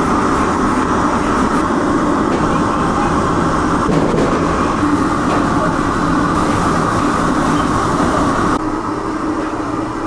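Loud, steady machine-like roar with a constant hum underneath. The sound changes abruptly and drops slightly near the end.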